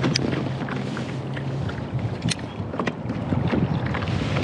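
Wind buffeting the microphone and choppy water lapping against a plastic kayak hull, with a few sharp ticks scattered through.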